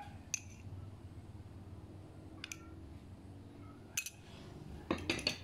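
A metal spoon clinking against a small ceramic bowl while scooping out thick syrup: a few separate clinks, the sharpest about four seconds in, then a quick run of clinks near the end.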